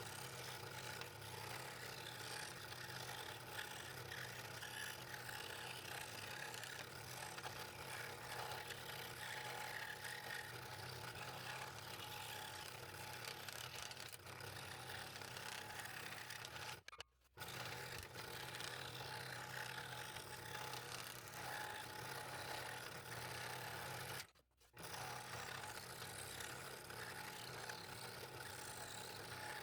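Scroll saw running steadily with a fresh No. 3 blade, cutting out a fretwork piece in a fairly dense wood: a low motor hum under the blade's steady cutting noise. The sound drops out twice for a moment, once a little past halfway and again about three quarters of the way through.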